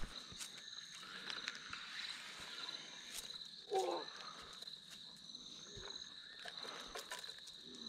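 Insects calling in a steady, high-pitched pulsing trill, with a few faint clicks and a short low sound about four seconds in.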